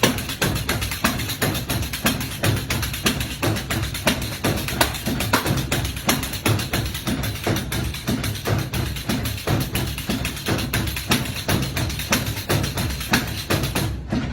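Music with a fast, steady percussion beat of tambourine-like and wood-block-like strikes.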